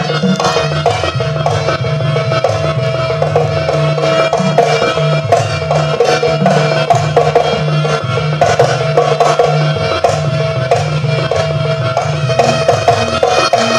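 Traditional Javanese dance music played live: hand drums beat dense, quick strokes over a steady held note.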